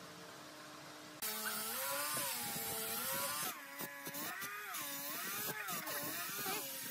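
Starting about a second in, a handheld angle grinder fitted with a sanding disc sands wood. Its motor whine wavers up and down in pitch as it is pressed against the wood, over a steady hiss of abrasion.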